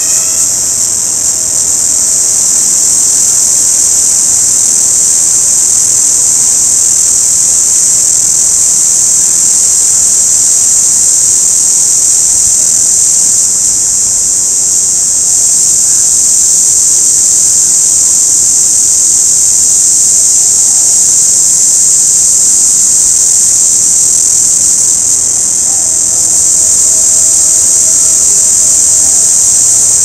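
Orange cicada singing: one continuous, high-pitched, unbroken buzz that holds steady throughout.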